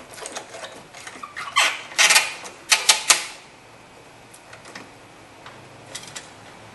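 Ratchet wrench and metal tools clicking and clanking at a battery terminal as the cable clamp is tightened: a cluster of sharp metallic clicks between about one and a half and three seconds in, then only a few faint ticks.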